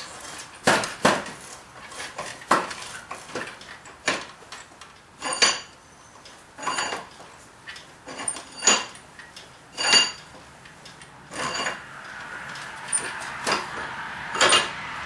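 Irregular metal clanks and clinks, about one every second or two, some with a short ring, as the screw of a blacksmith's vise is turned by its handle after being freed from rust by electrolysis.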